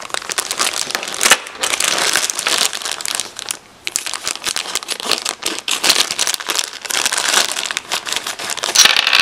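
Thin clear plastic bags crinkling and rustling as they are handled and opened to take out miniature toy pieces, with a brief pause about three and a half seconds in.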